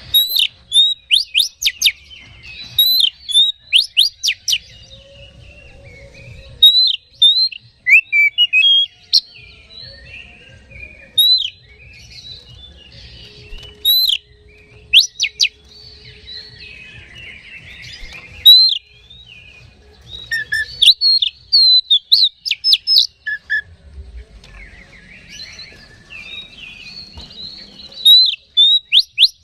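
Oriental magpie-robin singing: loud, sharp whistled notes and quick chirps in short bursts, with scratchy twittering between the bursts. It is the kind of song bird keepers play as a lure to rouse other caged magpie-robins.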